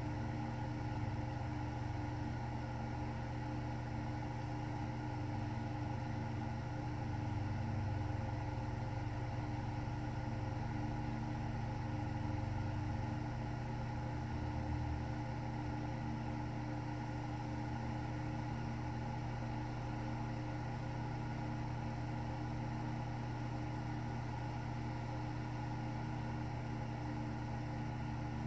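A steady low hum with several constant tones, like a running appliance in a room, with no clear rhythm of breaths.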